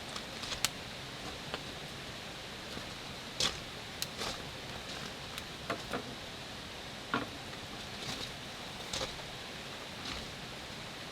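A steady light hiss of campsite ambience with scattered sharp clicks and taps, about one a second and irregular.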